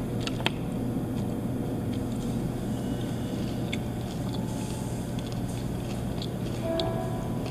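A person eating pork belly with chopsticks off a metal tray: faint chewing and a few sharp clicks of chopsticks and utensils against metal, over a steady low hum.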